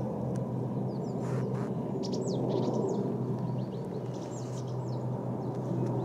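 Small songbirds giving short, high chirps scattered through, over a steady low rumble of background noise.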